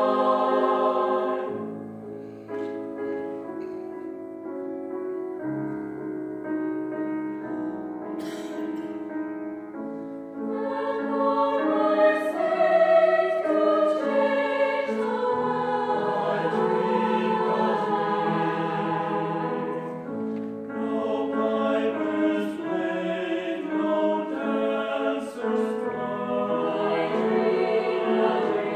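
Mixed choir singing with piano accompaniment. It sings softly for several seconds, then the full choir comes back in louder about ten seconds in.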